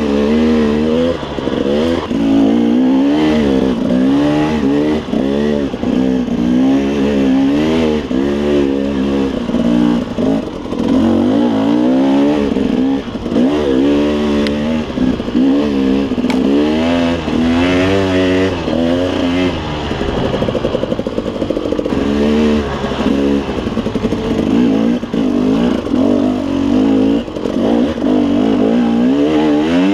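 KTM 300 two-stroke dirt bike engine under load on a trail ride, its revs rising and falling about once a second as the throttle is worked.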